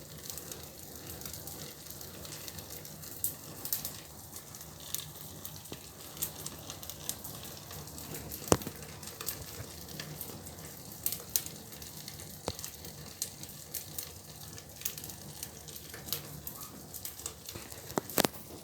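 A fire burning: steady hissing and crackling with scattered sharp pops, the loudest about eight and a half seconds in and two more close together near the end.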